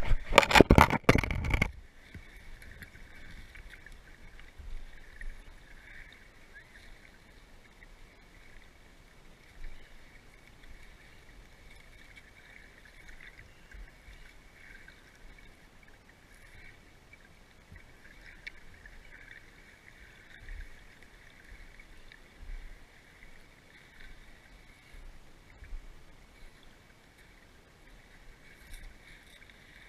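Water splashing loudly over the first two seconds as a swimmer moves right at the camera, then the muffled, steady hiss of a camera held at or just under the water's surface, with occasional faint knocks.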